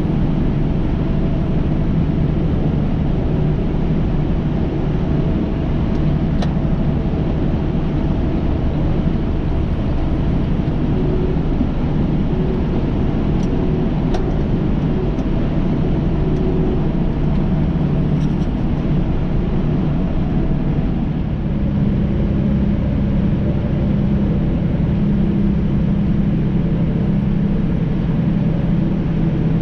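Steady engine drone and road noise inside the cab of a moving semi-truck, with the engine note shifting a little past two-thirds of the way through.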